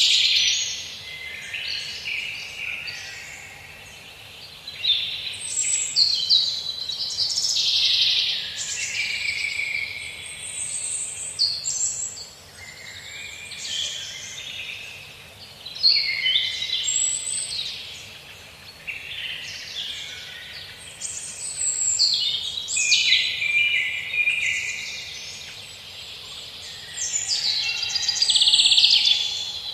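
A chorus of several songbirds singing and chirping at once, phrases overlapping without a break, loudest at the start and again near the end, over a faint steady background hiss.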